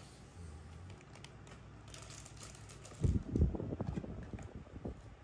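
Hands handling a small plastic vinyl toy figure: a quick cluster of light clicks and taps about three seconds in, as fingers grip and turn it.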